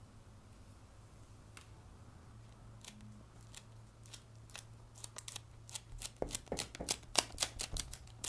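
Adhesive dust removal sticker dabbed again and again onto a phone's glass screen, making sharp sticky taps and peels. The taps come a few at a time at first, then about five seconds in they turn into a quick, louder run of several a second.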